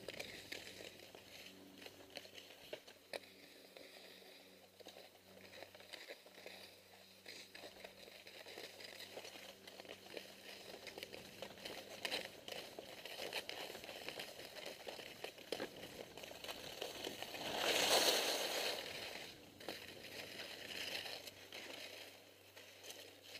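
Skis sliding and scraping over snow, with many small crackles and crunches, and one louder hiss of the skis skidding through a turn about three quarters of the way through.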